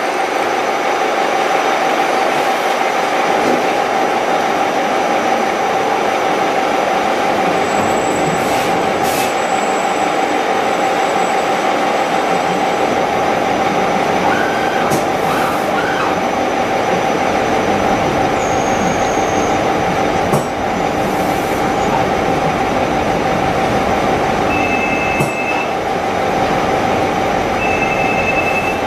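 Gear hobbing machine cutting teeth in MC cast-nylon gear blanks: steady machine running with a constant mid-pitched hum over the noise of the cut.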